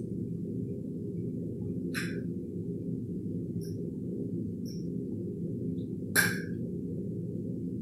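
A metal fork clinking against a plate while eating, two distinct clinks about four seconds apart, the second louder, with a few faint ticks between, over a steady low hum.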